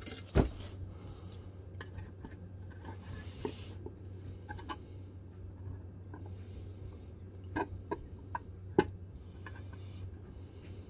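Scattered light clicks and taps from a tape measure and pencil being handled on a stainless steel plate while it is marked up for drilling, over a steady low hum.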